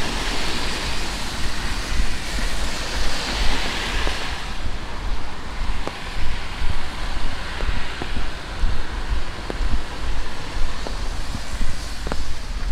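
Steady rain over a low rumble. A louder rain hiss in the first four and a half seconds stops abruptly, after which faint ticks come about once a second.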